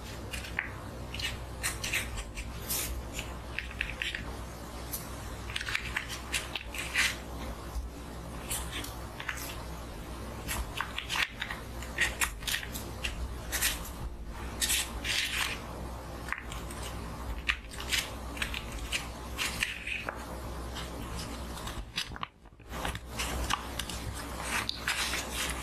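Pen writing on a paper herbal-medicine envelope: short, irregular scratchy strokes of the nib on paper, close-miked. Near the end the sound briefly drops away, then the paper is picked up and handled.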